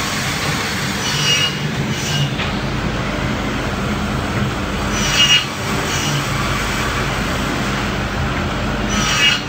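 Automatic wood pallet cutting machine running with a steady hum, with a brief screech of a saw cutting through wood three times, about every four seconds, as the pusher feeds each wood block through.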